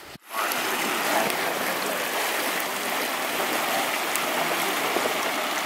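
Shallow warm-spring stream rushing and rippling over stones close by. The sound is a steady, even water noise that starts suddenly just after the beginning.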